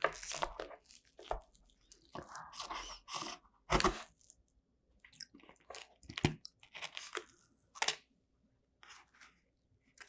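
Crisp tart pastry shell crunching and crackling as a strawberry tart is cut with a cake server and a slice is pried out, close-miked. The crunches come in irregular bursts, the sharpest about four and six seconds in.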